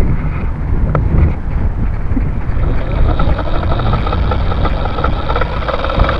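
Syma X5HC quadcopter's small motors and propellers whirring; the whine grows steadier from about halfway in. Heavy rumble from handling and wind on the drone's microphone.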